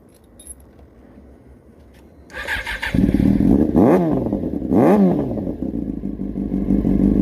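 Motorcycle engine started: a brief crank a little over two seconds in, it catches, is blipped twice with the pitch rising and falling each time, then settles into a steady idle.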